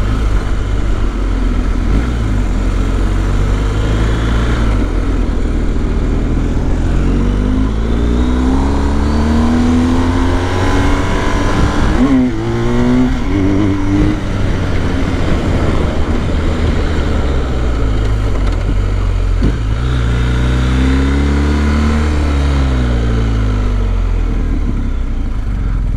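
BMW R1250's boxer-twin engine heard from the bike while riding under throttle, its pitch rising and falling several times as it accelerates and changes gear.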